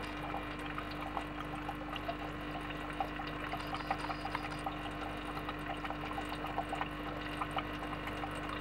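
Aquarium water trickling and bubbling steadily, with many small pops over a steady low hum.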